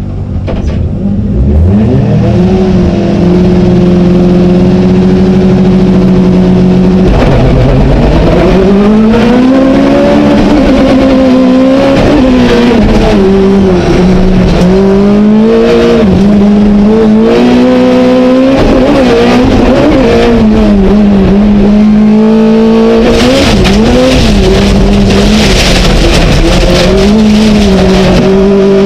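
Skoda Fabia Super1600 rallycross car's 1.6-litre four-cylinder engine, heard from inside the cockpit. It revs up and is held at steady high revs, then about seven seconds in the car launches and the engine note climbs and drops again and again through the gears at racing speed. A hiss from the loose surface grows near the end.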